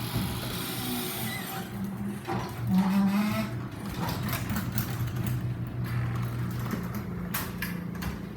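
Belt-drive garage door opener running as it lowers the door: a steady motor hum with a few clicks near the end.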